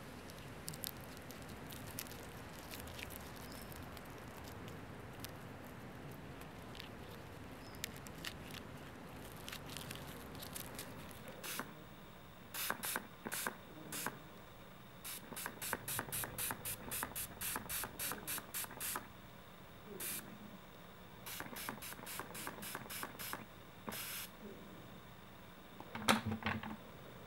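Hand spray bottle misting the moss terrarium: short squirts in quick runs, about four a second at their fastest, starting about halfway through, with the loudest squirt near the end. Before the spraying, only faint scattered clicks.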